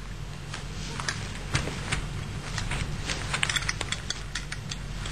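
Small clicks and clinks of a Vz. 58 rifle's parts being handled as the handguard is fitted back over the gas piston, with a quick run of clicks about three and a half seconds in. A steady low hum runs underneath.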